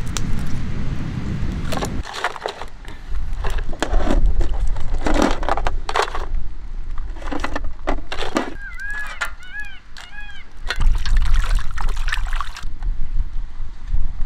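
Repeated sharp cracks and snaps of something brittle being broken by hand, with a low rumble in the first couple of seconds and again near the end. A few short high chirps come about nine seconds in.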